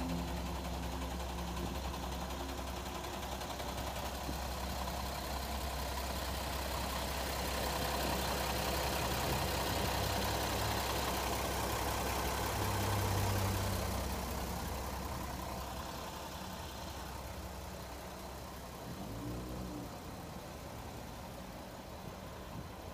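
Kenworth T300 truck's diesel engine idling steadily, a low drone that grows fainter in the second half.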